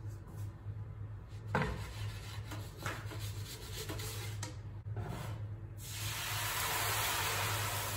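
Wooden pizza peel scraping and rubbing as a stuck, floured sourdough loaf is worked off it into the oven, with a couple of sharp knocks at about 1.5 and 3 seconds in. From about six seconds a steady hiss takes over and is the loudest sound.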